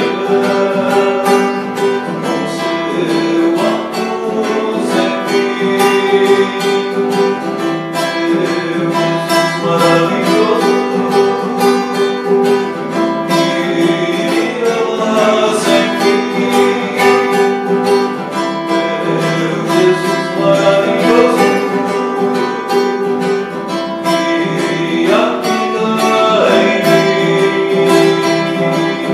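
A man singing in Portuguese to his own strummed classical guitar, steady and loud throughout.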